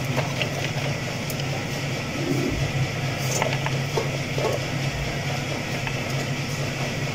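Steady low background hum, with a few faint clicks and rustles of carrot sticks and jaggery being shifted by hand in an aluminium pot.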